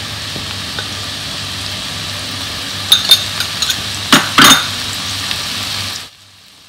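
Capsicum, onion and garlic sizzling in oil in a pan as they sauté, with a spoon knocking and scraping against the pan as they are stirred, loudest about three to four and a half seconds in. The sizzling cuts off about six seconds in.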